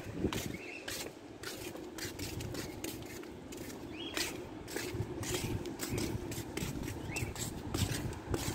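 Footsteps on a paved sidewalk, a run of light taps about two a second, over a steady low hum of street traffic.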